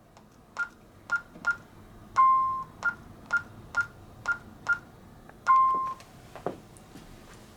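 Honeywell alarm keypad beeping as a code is keyed in to reset the alarm. Three short high key beeps come, then a longer, lower tone, then five more key beeps and another longer, lower tone. A faint knock follows.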